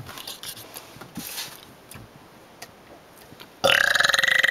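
A person lets out a long, loud, buzzy burp that starts suddenly about three and a half seconds in, after a few seconds of quiet.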